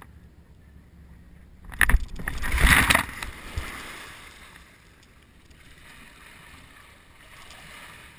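Kayak dropping into a lake in a seal launch: a sharp slap about two seconds in as the hull hits the water, then a loud splash of about a second that dies away into faint lapping water.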